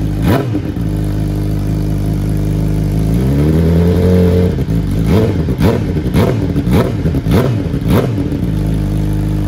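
Suzuki GSX-R1000 L9R superbike's inline-four engine, on a full Yoshimura titanium exhaust, idling and being blipped on the throttle. There is a quick rev just after the start and a longer rev held for about a second and a half around three seconds in. Then comes a run of six quick blips about every half-second.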